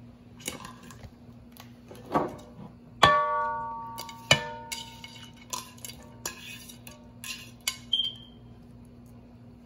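Ceramic plate clinking and knocking against the rim of a cooking pot as chopped vegetables are scraped off it, with a loud ringing clang about three seconds in, another ringing knock just after four seconds, then lighter clinks and taps. A faint steady hum runs underneath.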